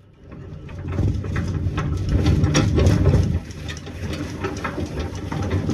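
A rusty wheelbarrow with a flat tyre being pushed along, rumbling and rattling as it rolls over the ground. The noise builds about a second in, is loudest in the middle, then eases a little.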